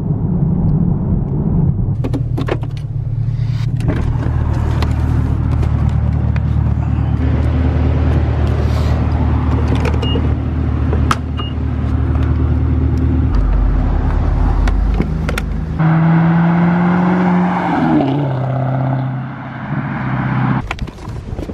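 Car engine running while driving, heard from inside the cabin as a steady low hum, with a few abrupt cuts. In the last few seconds a car passes with a falling pitch.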